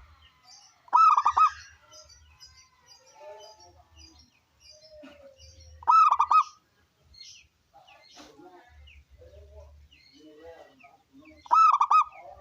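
Zebra dove (perkutut) cooing: three loud phrases about five seconds apart, each a quick run of three or four rolling notes. Faint chirps of other small birds sound between them.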